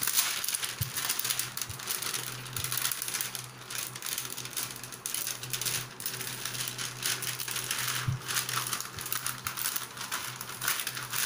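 Plastic sheet crinkling and rustling as dough beneath it is pressed and rolled flat with a plastic bottle used as a rolling pin, a continuous crackly rustle of many small ticks.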